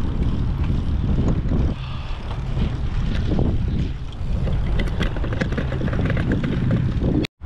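Steady low rumble of a bicycle rolling over paving stones, with wind buffeting the microphone and light rattling clicks about five to six seconds in. The sound drops out for an instant near the end.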